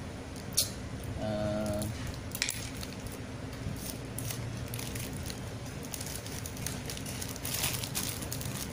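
A parcel being opened by hand: packaging handled and torn, with scattered sharp clicks and crackles and a brief tone about a second in.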